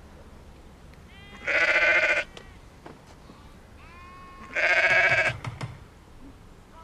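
A ewe in labour bleating twice, about three seconds apart: each a loud, wavering call lasting under a second.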